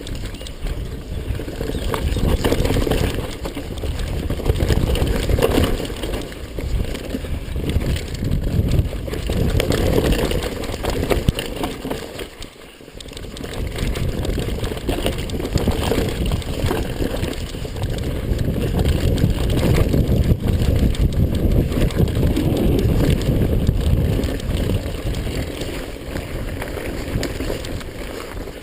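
Mountain bike ridden fast down a dirt trail: steady rumble of tyres and rattling of the bike, with wind on the microphone, dropping off briefly about twelve seconds in.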